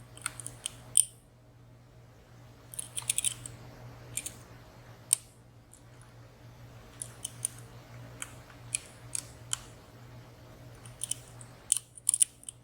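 Light metallic clicks and ticks of lock picks working the sliders and pins inside a WSW W10 high-security padlock, coming in scattered small clusters; the sharpest clicks fall about a second in and about five seconds in.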